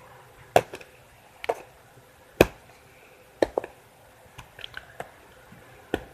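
A string of about ten short, sharp clicks and knocks, spaced irregularly, the loudest about two and a half seconds in.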